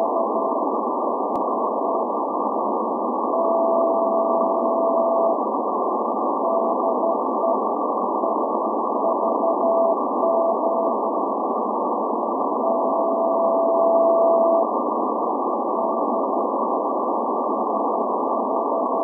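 Shortwave Morse code channel marker from SVO, the Athens maritime coast station, received in CW mode: a single beeping tone keys out the call sign over steady radio static hiss. Each round ends in a long steady tone of about two seconds, heard twice.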